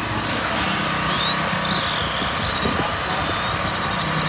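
1/10 electric RC touring cars racing past, their motors and gears giving a high whine that rises and falls as the throttle changes. A brief hiss comes near the start.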